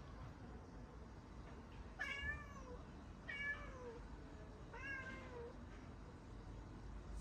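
Domestic cat meowing three times, each meow about half a second long and falling in pitch at the end.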